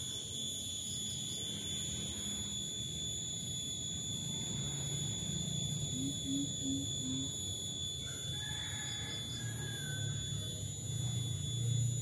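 Coucal giving a short series of four low, evenly spaced hoots about six seconds in, over a steady high-pitched whine.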